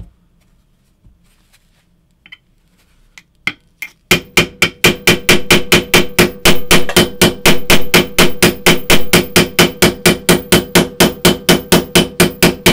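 Small hammer striking a steel pin punch to drive a gas-block pin out of a rifle barrel. A few light taps come first, then about four seconds in a fast, even run of blows starts, about five a second, each with a metallic ring.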